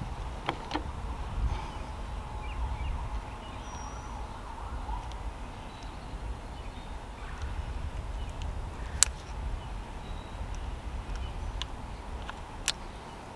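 Low wind rumble on the microphone, with a few sharp clicks and taps from handling gear in a small boat: two quick ones just after the start, a louder one about nine seconds in, and another near the end.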